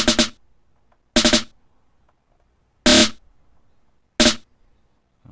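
Snare-drum rolls triggered from an Akai MPC 500 pad in note repeat mode: four short bursts of rapid repeated snare hits, a little over a second apart.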